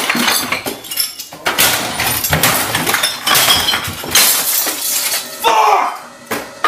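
A series of crashes, knocks and breaking, clinking glass as a man smashes things around a room cluttered with bottles and furniture.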